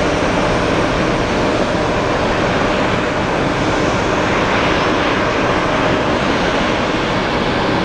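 Boeing 787-8 airliner's jet engines running, a steady loud rush.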